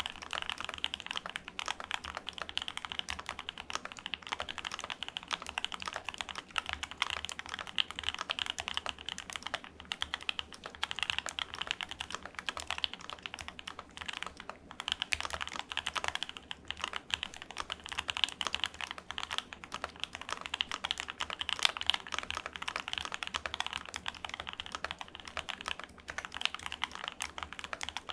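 Fast, continuous typing on a Keychron Q2 65% aluminium gasket-mount mechanical keyboard with Gateron Box Ink switches on its steel plate: a dense, even stream of key clacks.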